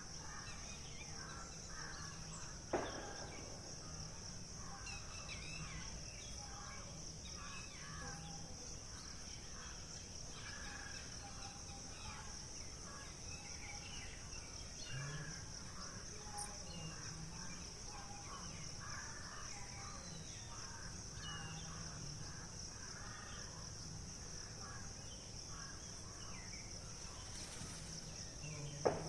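Steady high-pitched trilling of insects with many small birds chirping in short repeated calls. Two sharp clicks, one a few seconds in and one near the end.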